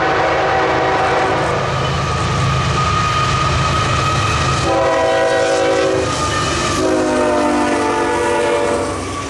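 Diesel freight locomotive's chime air horn sounding three times as a double-stack container train approaches and passes. The first blast ends about a second and a half in, a shorter one comes about five seconds in, and a longer one about seven seconds in, its pitch dropping slightly as the locomotive goes by. Under the horn runs the steady rumble of the locomotives and the train rolling on the rails.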